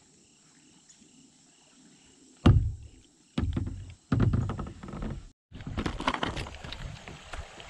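Quiet at first, then a sharp thunk about two and a half seconds in, followed by heavier knocking and rustling; after that, water splashing and lapping around an inflatable kayak as it is paddled.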